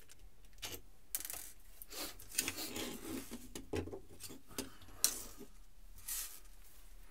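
Small machine screws being undone with a screwdriver and handled on a hard worktop: scattered light metallic clicks and taps with rubbing and handling noise, the sharpest click about five seconds in.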